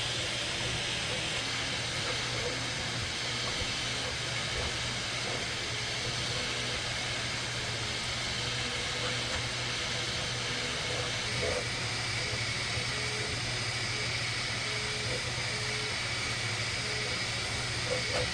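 Bambu Lab 3D printer running a print: a steady fan hiss and hum, with short whining stepper-motor tones that start and stop as the print head moves.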